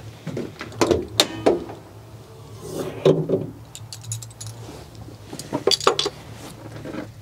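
Socket ratchet and car metalwork clinking and knocking as the tool is handled around the car's bonnet, in a few clusters of sharp metallic clinks, over a steady low hum.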